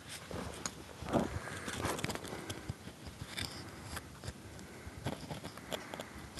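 Faint, scattered clicks and gravelly scrapes as a camera is handled and set down on gravel, its view being adjusted.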